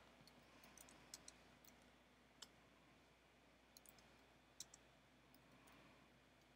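Faint keystrokes on a computer keyboard: about ten soft, irregularly spaced clicks over near-silent room tone.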